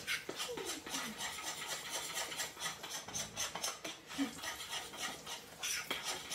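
Metal spoon stirring and scraping a thick protein-powder batter around a mixing bowl: a quiet run of soft, irregular scrapes.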